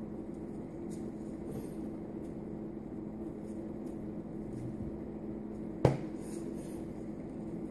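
Steady low hum, with a single sharp knock about six seconds in: a hand striking the tabletop.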